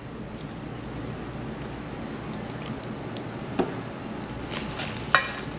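Alfredo sauce and pasta simmering in a pot on a gas burner, a low steady bubbling, with a faint click about three and a half seconds in and a sharper click about a second later.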